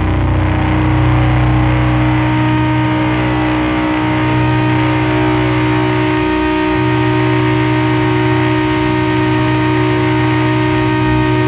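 Sludge/doom metal: a heavily distorted electric guitar holds a long, droning chord that rings on steadily, with no drum hits.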